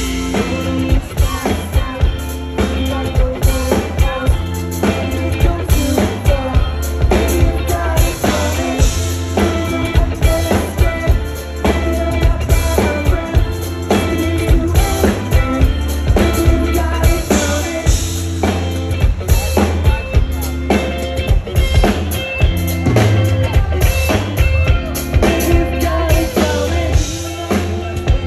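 Indie rock band playing live: a drum kit keeps a steady beat with snare and bass drum under electric guitars and a bass guitar.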